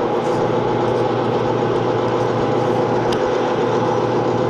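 Metal lathe running steadily, its motor and headstock gearing giving an even hum with a few constant tones.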